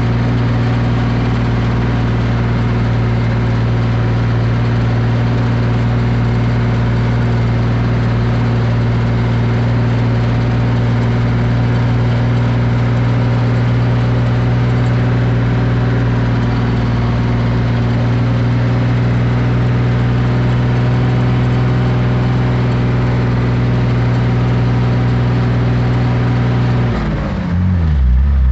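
Engine of a loaded grain truck, heard from the cab, pulling at steady revs in second gear up a climb. Near the end its speed drops and the note falls.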